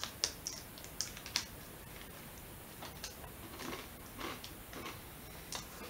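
Faint crisp clicks and crackles of a foil-wrapped, chocolate-covered puffed rice bar being handled and bitten into: a quick cluster of sharp clicks in the first second and a half, then softer crunches about every half second.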